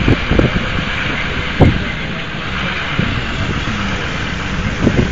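Motor vehicle driving slowly over a rough grass field track: a steady rumble and noise, with wind on the microphone and a single sharp knock about a second and a half in.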